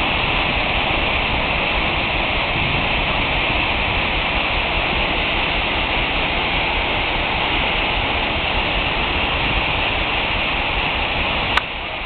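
Calf Creek Falls pouring down a sandstone cliff into its pool: a steady, even rush of falling water. Near the end a single sharp click, after which the rush is a little quieter.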